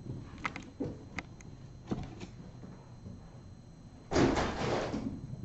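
A few light clicks and knocks, then a loud rustling clatter about four seconds in that lasts about a second.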